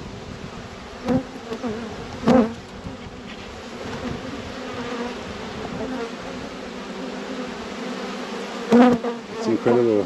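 A honeybee colony humming steadily from an open hive box, thousands of bees on the exposed frames. A few short knocks cut through the hum, the loudest about two seconds in and near the end.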